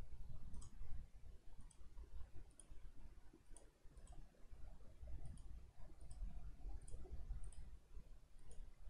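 Faint computer mouse clicks, often a quick press-and-release pair, about once a second as dropdown options are picked, over a low background rumble.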